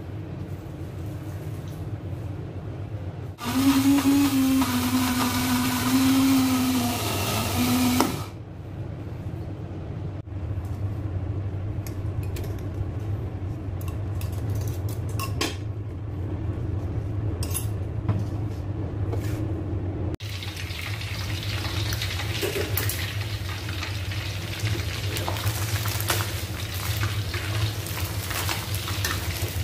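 An electric blender runs for about five seconds, with one brief stop, grinding chilies, shallots and garlic into a paste. Then come clinks and scrapes as the paste is scraped out of the glass blender jar. From about two-thirds of the way in, chicken pieces fry in hot oil in a wok with a steady sizzle.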